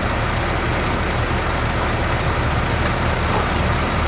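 A vehicle engine running steadily, a low even hum.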